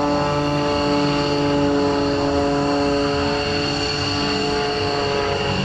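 Engine of a single-engine aerobatic propeller airplane running steadily at power through a smoke-trailing loop: a continuous droning hum made of several steady pitches.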